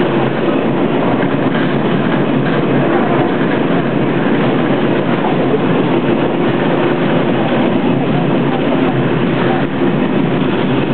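Open tram running along a street, heard from on board: a steady rumble of wheels on rails with a faint even hum.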